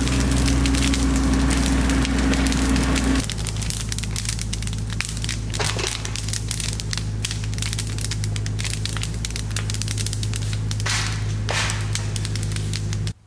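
Bonfire of cut branches crackling and popping, with a few louder rushes of flame, over a steady low engine hum.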